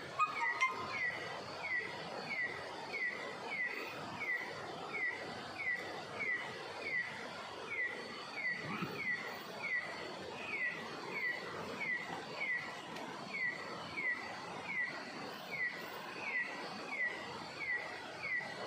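A bird calling over and over: a short falling note repeated steadily about twice a second, with a faint steady high-pitched drone behind it. A brief knock sounds about half a second in.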